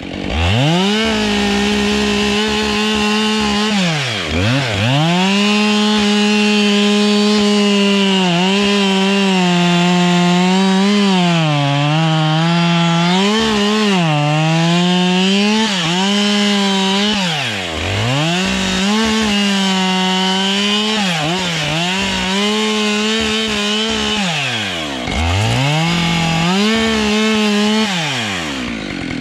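Husqvarna 572 two-stroke chainsaw running at high revs while cutting into a spruce, its pitch sagging and wavering under load. About four times the throttle is let off, the revs drop nearly to idle, and then it is revved back up.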